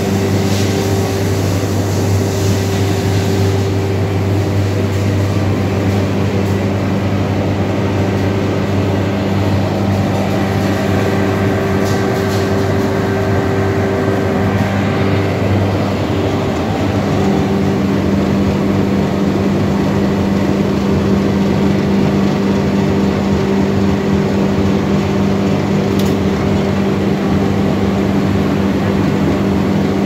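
Battery-plastic washing and recycling line running: a loud, steady hum of its electric motors and machinery. The deep hum changes about halfway through.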